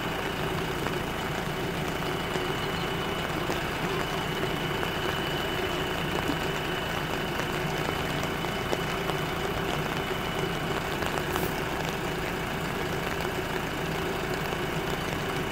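JCB 3DX Super backhoe loader's diesel engine idling steadily, with a thin steady high whine above it.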